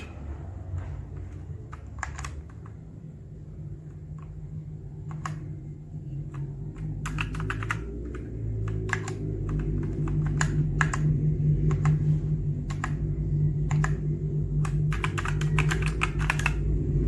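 Typing on a Smart Space SK-68 mechanical keyboard with linear red switches: sharp keystrokes in irregular runs, over a steady low hum.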